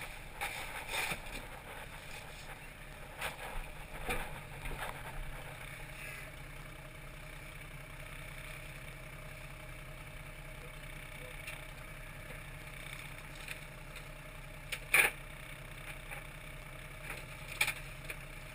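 Fishing trawler's engine running steadily, with scattered knocks and clatter on deck; the loudest knock comes about 15 seconds in.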